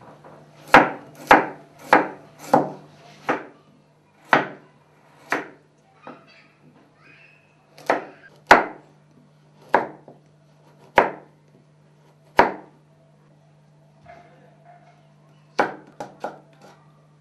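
Kitchen knife slicing carrots on a wooden cutting board: a series of sharp chops, about two a second at first, then slower and uneven, with a quick run of chops near the end.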